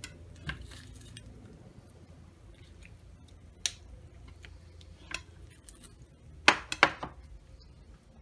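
Serving spoon scooping baked pasta, clinking and scraping against a glass baking dish and a ceramic bowl: scattered light clicks, then a quick run of three or four louder knocks near the end.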